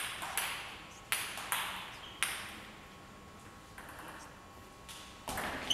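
Table tennis rally: a celluloid-type ball clicking sharply off the rackets and bouncing on the table, about five crisp clicks in the first two seconds or so, then a few fainter ones near the end, with the hall's echo behind them.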